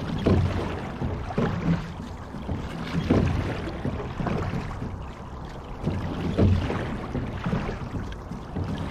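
Water rushing and splashing along the hull of a sculling boat under way, swelling in a rhythm about every three seconds with the rowing strokes.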